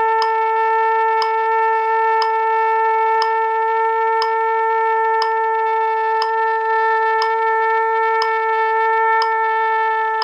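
Trumpet holding one long, steady note without a break, as a long-tone practice exercise. A short click sounds about once a second throughout.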